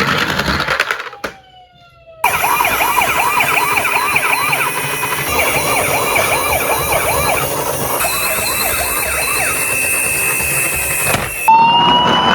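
Several emergency-vehicle sirens yelping rapidly over one another, after a short falling tone and a brief pause about a second in. Near the end a single steady wail takes over.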